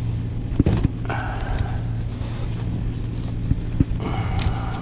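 A steady low engine hum, with a few short knocks and clatters from handling gear on board.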